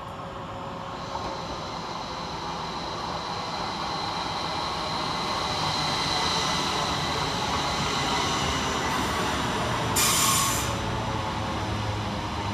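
A Northern Class 333 electric multiple unit coming round a curve into the station, its wheels squealing with a thin steady high ring as the running noise grows louder. About ten seconds in there is a brief loud hiss.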